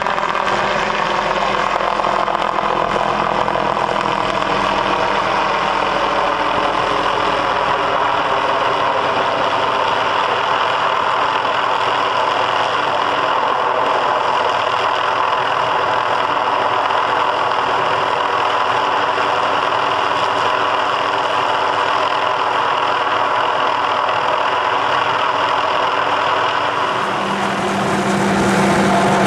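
Helicopter hovering overhead: a loud, steady turbine-and-rotor drone. Near the end the sound shifts, with a steady low hum coming in.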